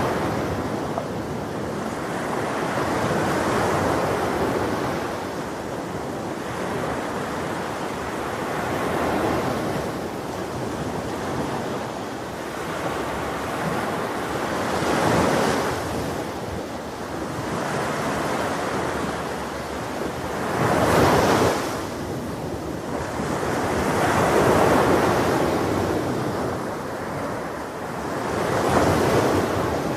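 Ocean waves breaking on a beach, the surf swelling and receding every few seconds, with the strongest wave about two-thirds of the way through, under some wind noise on the microphone.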